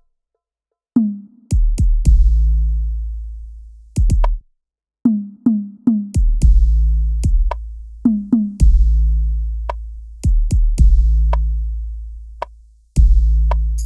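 Hadroh percussion music mixed with heavily boosted bass: sparse drum strikes, several followed by a long deep bass boom that dies away over a second or two. It starts after about a second of silence.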